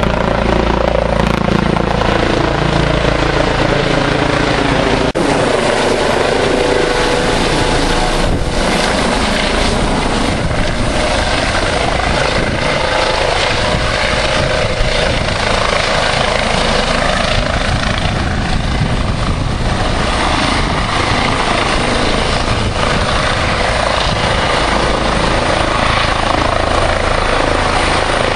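Air ambulance helicopter with a shrouded tail rotor, flying overhead and descending to hover low for landing: a loud, steady rotor and engine noise, falling in pitch over the first few seconds as it passes over, then an even roar.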